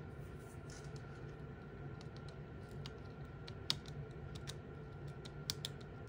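Craft blade chopping through baked polymer clay, its edge tapping the metal tin in quick, irregular sharp clicks, one louder click about halfway through. A faint steady hum runs underneath.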